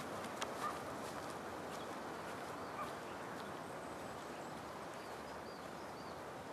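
Quiet open-air ambience: a steady soft hiss of outdoor air with a few faint bird chirps, a short run of them near the end, and a couple of soft ticks near the start.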